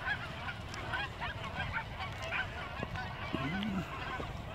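A large flock of geese honking as it takes flight, with many short calls overlapping continuously: the alarm calls of a flock flushed by a chasing dog.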